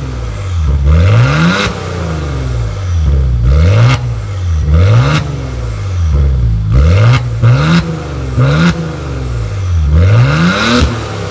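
2018 Maserati Levante's engine revved again and again through its quad exhaust: about eight throttle blips, each climbing in pitch and falling back to idle.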